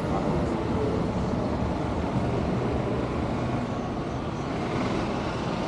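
Street traffic at an intersection: cars and a pickup truck passing, a steady low rumble of engines and tyres.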